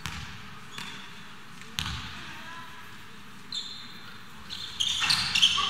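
A basketball bouncing on a hard court floor: a few separate thuds in the first two seconds. From a little past halfway, short high-pitched sneaker squeaks on the court come in and grow busier near the end.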